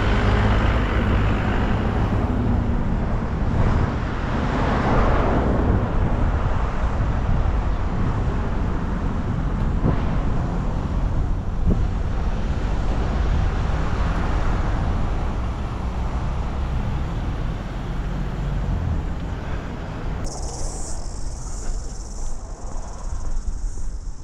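Road traffic noise with a low rumble and wind on the microphone; a vehicle swells past about five seconds in. Near the end the rumble drops away and a steady high hiss takes over.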